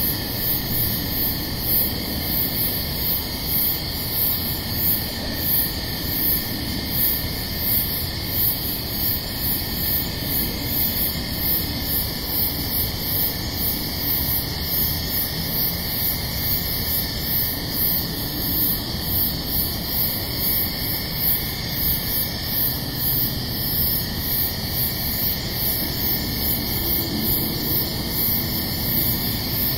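Steady hiss from a trail camera's microphone, with crickets chirping high and evenly, about three chirps every two seconds.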